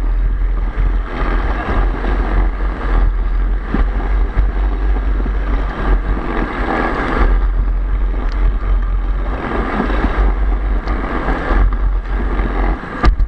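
Wind buffeting a head-mounted action camera's microphone, mixed with the steady noise of an alpine slide sled running fast down its track.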